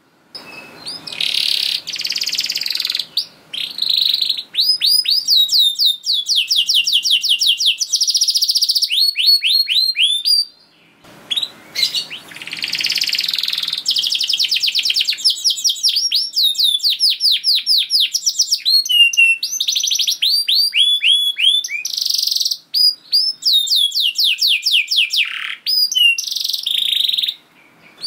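Domestic canary singing a long, high song of fast rolling trills and rapid runs of repeated gliding whistles, broken by a short pause about ten seconds in.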